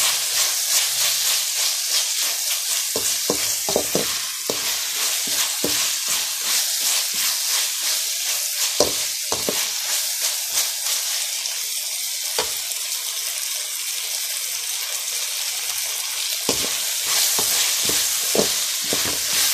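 Chopped onions, curry leaves and green chillies with ginger-garlic paste sizzling in oil in a metal pan while a metal spatula stirs and scrapes them, sautéing the onions soft. The scraping strokes come in runs, with a lull of a few seconds past the middle before the stirring picks up again.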